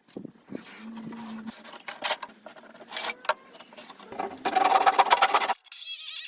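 A run of irregular knocks, clicks and scraping, with a denser stretch of rattling scrape in the second half. Background music cuts in near the end.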